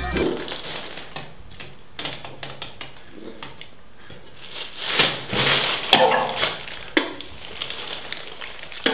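Plastic bag crinkling and rustling as it is handled and pulled open. The loudest rustling comes about five to six seconds in, with a few sharp clicks and taps among it.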